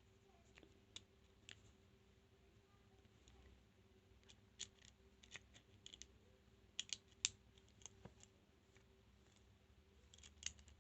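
Faint, irregular small metallic clicks and ticks of lock picks working the pins of a transparent practice padlock, with a quick cluster of sharper clicks about seven seconds in.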